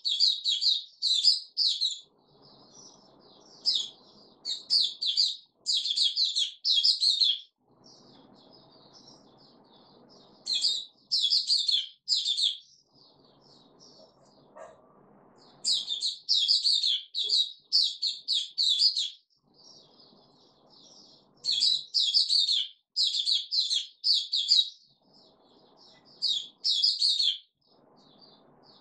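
Caged white-eye (mata puteh) singing: phrases of rapid, high twittering notes, each lasting one to a few seconds, repeated with short pauses between.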